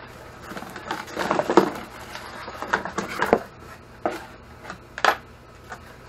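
Cardboard packaging rustling and scraping as a new cordless angle grinder is lifted out of its box, with a couple of sharp knocks near the end.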